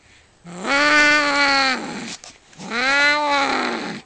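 Domestic cats yowling in a fight: two long wails, each rising and then falling in pitch, with a short pause between them.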